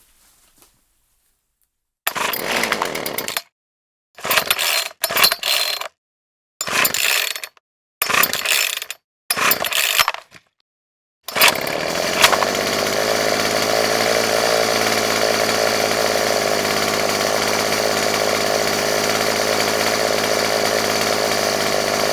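Chainsaw motor blipped in six short bursts of about a second each, then held running steadily for the last ten seconds or so.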